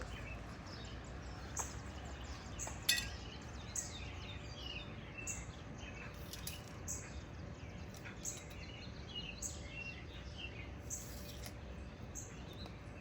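Small birds chirping, short high calls about once a second over a low steady outdoor background, with a sharp click about three seconds in.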